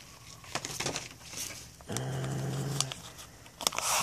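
Hands handling plastic packaging, with scattered crinkles and clicks that grow louder near the end. A steady low hum lasting about a second comes in the middle.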